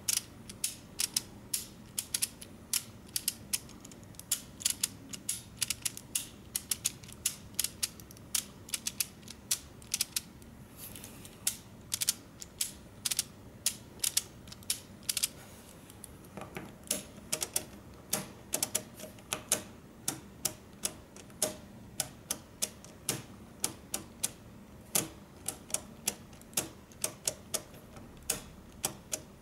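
LEGO Technic stepper mechanism being turned by hand, its plastic gears and detent clicking as it steps round in 90° increments. A quick irregular run of sharp plastic clicks, roughly two to four a second, with short pauses a little over a third of the way in and again about halfway.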